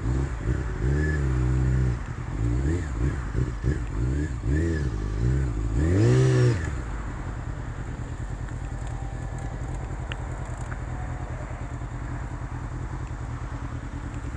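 Motorcycle engine with its revs rising and falling repeatedly as the bike slows and changes gear, with a last loud rise and drop about six seconds in. It then settles into a steady, even idle.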